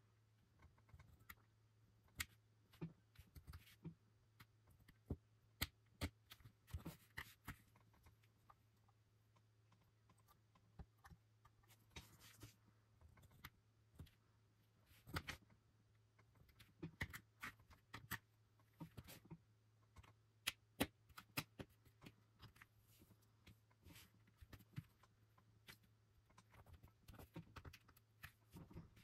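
Hobby knife blade cutting curves into a strip of masking tape on a work mat: faint, irregular small clicks and scratches as the blade presses and drags through the tape.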